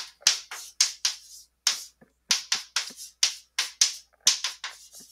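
Chalk writing on a blackboard: a quick run of short taps and scratches, about three or four strokes a second, as an equation is written out.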